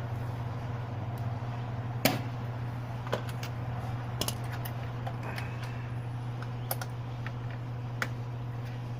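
Scattered sharp clicks and taps of hands handling small hardware, the loudest knock about two seconds in, over a steady low hum.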